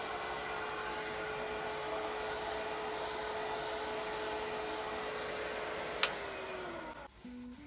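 Unix Super D+ hair dryer blowing steadily with a whirring motor tone. About six seconds in it is switched off with a click, and the motor whine falls away as it spins down.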